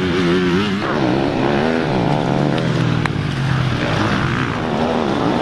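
Motocross bike engine revving up and down as the throttle is opened and closed, its pitch rising and falling every second or so. Two sharp clicks sound around the middle.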